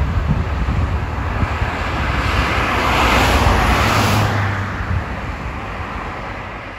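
Cars passing on a highway close by, with one vehicle's tyre hiss swelling loudest about three to four seconds in and then fading, over an uneven low rumble.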